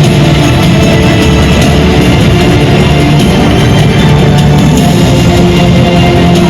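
Loud rock music with guitar playing steadily.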